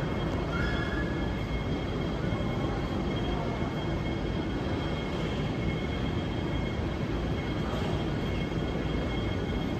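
Steady mechanical droning at an even level with no distinct events, and two faint high steady whining tones above it.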